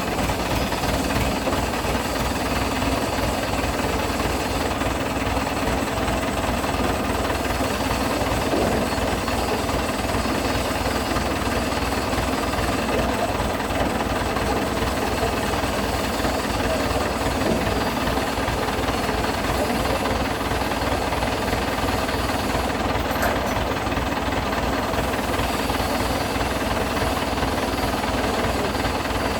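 Industrial tray washing machine running: a steady, dense mechanical noise with a fast, even low pulsing underneath.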